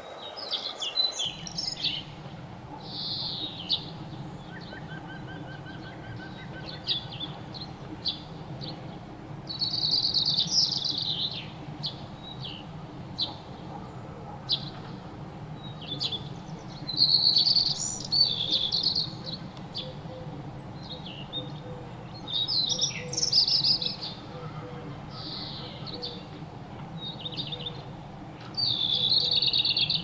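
Small songbirds chirping and twittering in bursts of a second or two, with single chirps in between, over a steady low hum.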